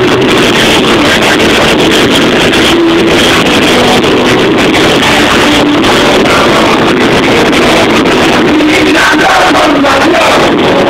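A band playing live, loud and unbroken, recorded through a cell phone camera's microphone with poor sound quality.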